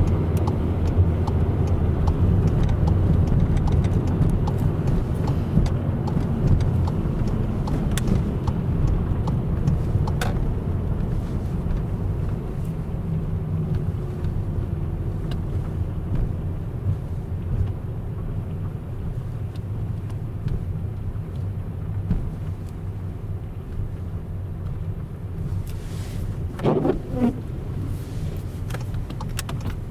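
Steady engine and tyre rumble of a car driving, heard from inside the cabin, easing a little in the second half. A brief clatter near the end.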